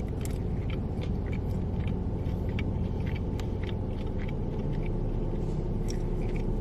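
Chewing and mouth sounds while eating, heard as a scatter of short, faint clicks over a steady low rumble.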